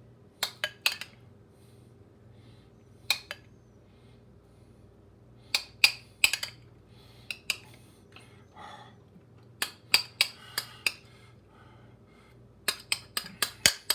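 Cutlery clinking and tapping against plates and dishes, in scattered sharp taps and small clusters, with a quick run of taps near the end.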